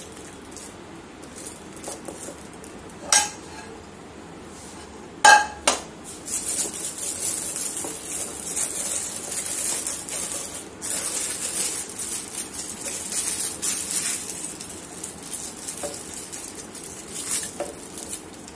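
A steel spoon clinks a few times against a plastic cup while thick caramel is scraped into a piping bag. After about six seconds the plastic piping bag crinkles and rustles steadily as it is handled and gathered up.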